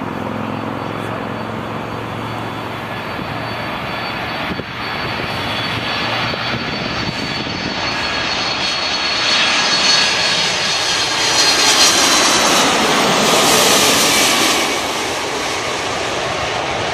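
Boeing 747-400 on landing approach, its four turbofan engines passing: a steady jet rumble builds, peaks with a high fan whine made of several tones, then eases off as the airliner goes by.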